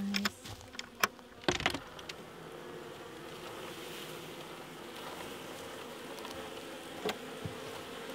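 Honey bees buzzing steadily in a mass around an opened horizontal Layens hive. A few sharp wooden knocks and clicks in the first two seconds as the hive's latch and lid are handled, and one more knock about seven seconds in.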